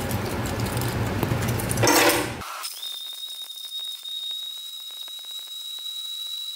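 High-power tabletop blender grinding cut-up circuit-board pieces. For the first two seconds or so it makes a loud grinding clatter. Then the load drops as the boards are reduced to fine powder, and the motor runs on as a steady high whine with fine ticking from grit hitting the jar.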